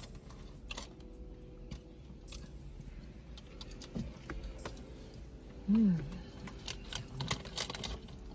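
Close-up chewing and biting into fried chicken, with scattered crisp crunches and mouth clicks. A short hummed 'mm' with a pitch that rises and falls, about six seconds in, is the loudest sound.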